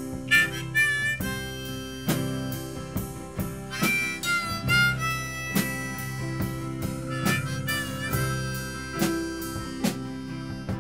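A rock band plays an instrumental passage: a harmonica on a neck rack plays three short phrases with bent notes over electric guitar, bass guitar and drums.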